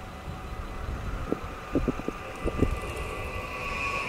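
Approaching Dutch passenger train: a low rumble and a rail hiss that grow steadily louder toward the end. A handful of short knocks come about a second and a half to two and a half seconds in.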